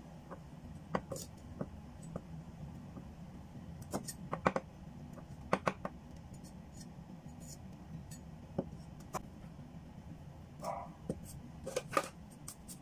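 Knife blade knocking on a bamboo chopping board as garlic cloves are cut, in scattered single strikes.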